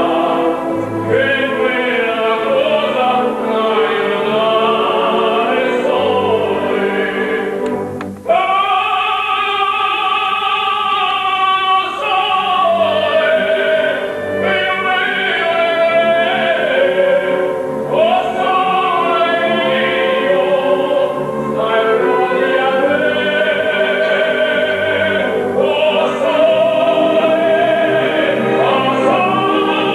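Opera singing in long held and gliding notes, with a short break about eight seconds in.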